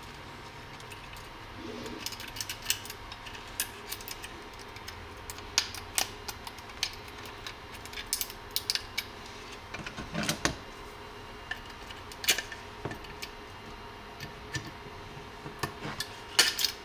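Irregular sharp clicks and small snaps of 3D-printed plastic as support scaffolding is pried and broken out of a printed airsoft lower receiver, with louder clusters about ten seconds in and near the end.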